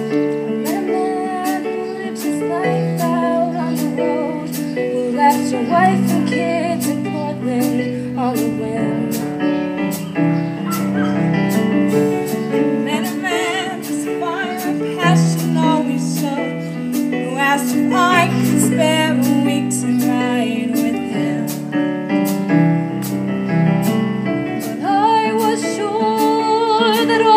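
Live musical-theatre accompaniment on keyboard, sustained chords over a steady high tick about twice a second. Near the end, voices come in holding a note with vibrato.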